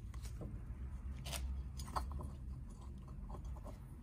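Light metallic clicks and a short scrape as a rocker arm and its shaft are worked by hand out of an aluminium ATV cylinder head. The sharpest click comes about two seconds in, over a steady low hum.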